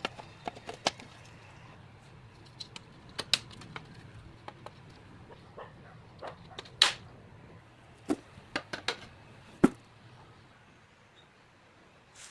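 Aluminium cabinet-door frame parts clicking and knocking as they are handled and fitted together: irregular sharp clicks and light taps, a loud knock about seven seconds in and another near ten seconds.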